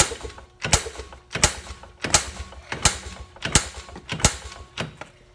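A run of about seven sharp mechanical clacks at an even pace, a little under one and a half a second, like a ratchet or a metal part being worked back and forth on a vehicle.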